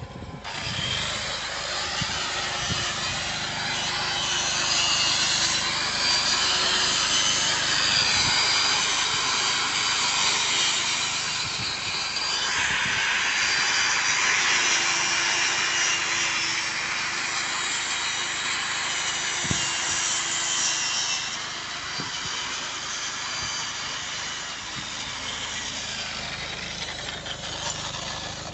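Welding on an injection pipe: a steady harsh hiss that starts abruptly and stops abruptly about half a minute later, growing brighter for a while around the middle.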